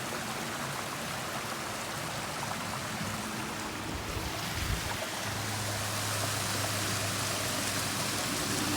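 A forest stream flowing steadily, with a low bump about halfway through and a steady low hum joining about five seconds in.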